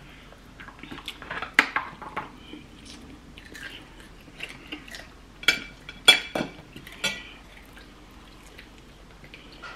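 Forks clinking and scraping against a plate and a plastic food tray: scattered, irregular clinks, the loudest about a second and a half in and about six seconds in, with quiet chewing between them.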